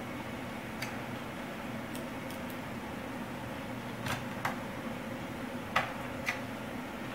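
Small screwdriver and screws clicking and tapping against a laptop's plastic screen bezel as the bezel screws are put back in, about seven short sharp clicks spread irregularly, over a steady low hum.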